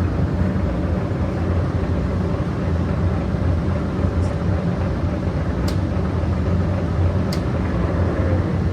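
A POREBA TRP93/6M engine lathe running steadily under power with its carriage on power feed, a deep, even machine hum. Three faint ticks come about four, six and seven seconds in.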